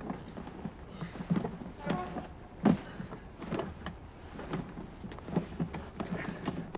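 Footsteps going down a stairwell while a large suitcase is carried, with an uneven run of knocks and rustles; the loudest knock comes a little under three seconds in.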